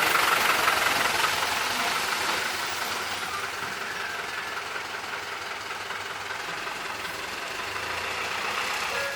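Vehicle noise that is loudest at the start and fades over the first few seconds into a steady background hum.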